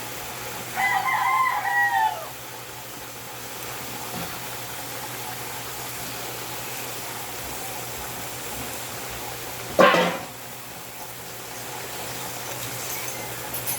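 A rooster crows once, about a second in, a pitched call of several parts that falls at the end. Near the end a brief, loud knock cuts in over a steady low hum.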